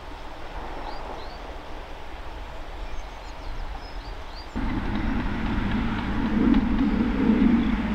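Quiet outdoor ambience with a few faint bird chirps. About halfway through it changes abruptly to a louder, steady low rumble of motor traffic.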